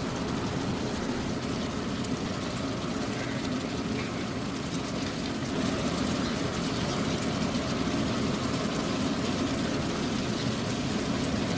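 Steady rumbling noise of a large aluminium pot of mutton masala cooking over a high flame.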